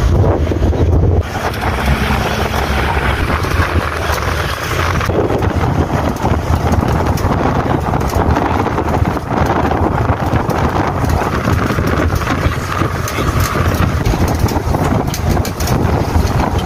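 Motorcycle engine running on the move, with wind buffeting the microphone and frequent small knocks and rattles from the ride.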